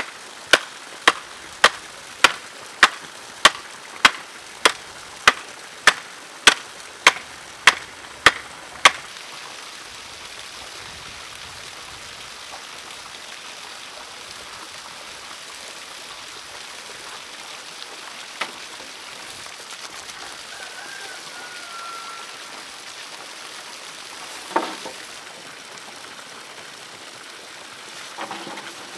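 A hand-held stone knocking on the top of a bamboo stake to drive it into the ground: about sixteen sharp, evenly paced knocks, roughly one every 0.6 seconds, stopping about nine seconds in. After that comes the steady splash of water running from a pipe into a pond, with one more knock later on.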